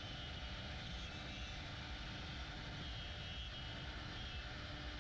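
AVID CNC router running steadily: constant machine noise with a steady low hum.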